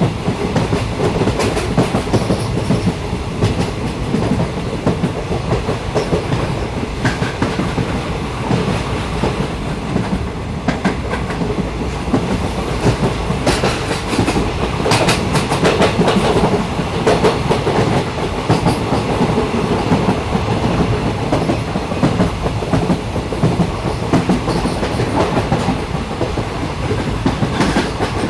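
A train running along the rails: a steady rumble with the wheels clattering over the track, the clatter growing louder for a few seconds about halfway through.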